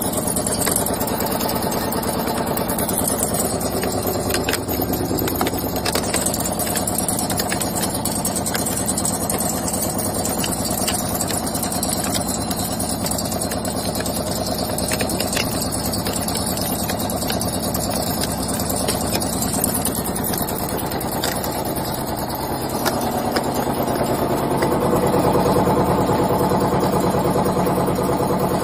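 High-speed automatic wire nail making machine running, a fast, steady mechanical clatter of its rapid forming strokes, getting somewhat louder near the end.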